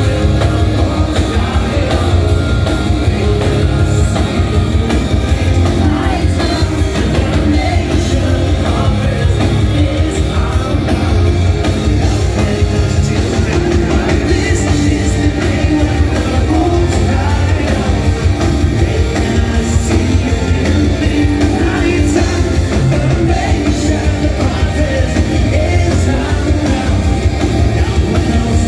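Power-metal band playing loud and without a break, with lead vocals over fast drums, distorted guitars, bass and keytar, recorded from the crowd.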